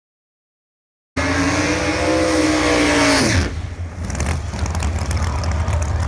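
Drag racing cars running down the strip. The loud, high engine note cuts in suddenly about a second in, holds, then drops away steeply at about three seconds. A heavy rumble and noise follow.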